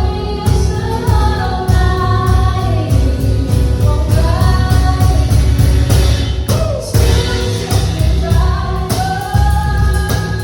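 Contemporary Christian worship song: sung melody over a full band with a steady beat and heavy bass.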